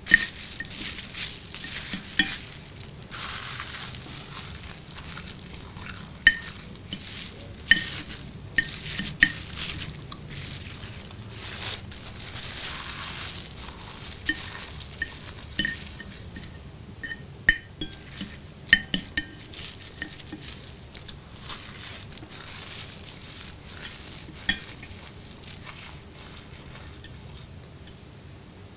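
Knife and fork clinking and scraping against a ceramic plate in many sharp, scattered strokes, with the rustle and crinkle of a plastic bag being cut and eaten.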